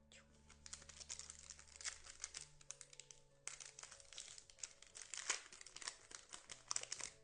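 Crinkling of a foil trading-card pack wrapper being handled and opened, in two long stretches with a short break a little past the middle.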